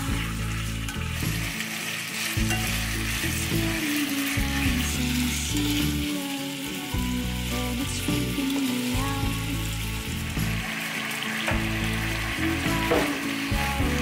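Chicken pieces sizzling as they fry in sesame oil in a pot, stirred with a spatula; about halfway through, handfuls of cut cabbage go into the pot. Background music plays underneath.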